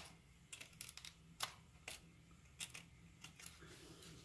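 Faint, irregular small clicks and scratches of a hobby knife blade cutting into the glue holding a micro servo in a foam wing, with a sharper click right at the start.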